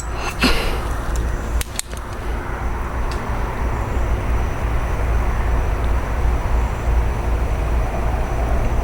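A few sharp metallic clicks in the first two seconds, then a key-cutting machine's motor running steadily with a low hum. The machine is cutting a key blank deeper at the pin positions marked during impressioning.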